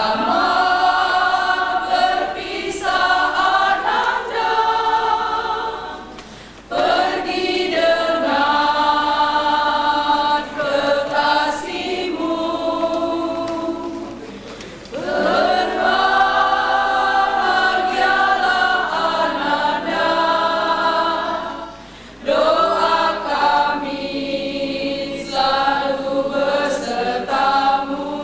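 Women's choir singing a hymn in long, sustained phrases, with three brief breaks between phrases.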